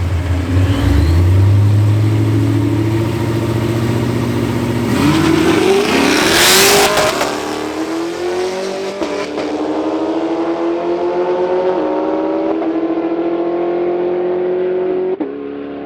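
Street drag race between a BMW 435i and a Camaro: engines rumble while staged, then a loud burst of hissing noise at the launch about five seconds in, and an engine pulls hard and climbs in pitch through the gears, upshifting about every three seconds.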